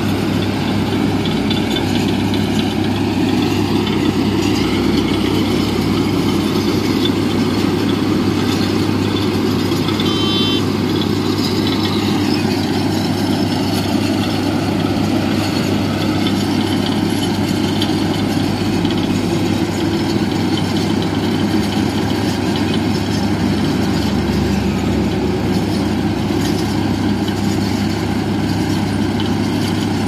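Heavy vehicle engine running steadily at a constant low pitch, without revving.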